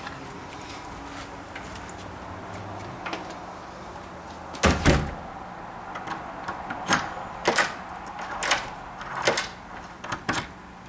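Front door shut with a solid thump about halfway through, then a run of sharp metallic clicks as the Kwikset deadbolt is thrown and retracted against a newly fitted strike plate, testing whether the bolt runs smoothly after adjustment.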